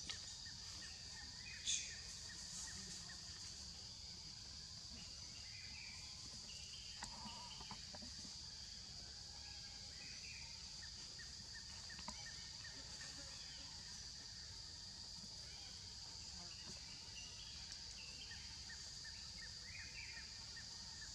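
Outdoor ambience dominated by a steady high-pitched insect drone, with faint scattered chirps and a few small clicks.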